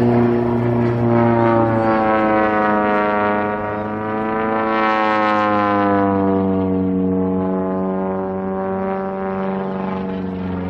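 Engine and propeller of a Zlin 50 aerobatic monoplane droning overhead during a smoke-trailing aerobatic routine. The drone holds steady, its pitch rising about halfway through as the plane dives, then falling back.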